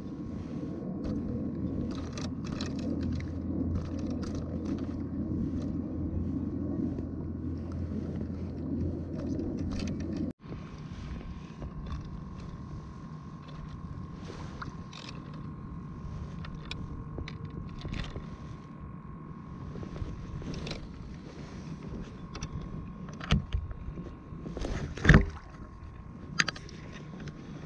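Fishing tackle handled aboard a kayak: scattered small clicks and taps as a bait fish is hooked and a spinning rod and reel readied, with a couple of sharp knocks near the end. Under it runs a steady low hum with a faint high tone, which drops away abruptly about a third of the way through.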